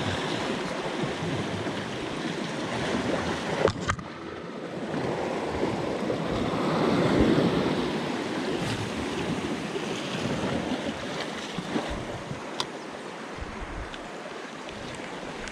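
Sea surf washing and breaking against shoreline rocks, swelling to its loudest about halfway through, with one sharp click a few seconds in.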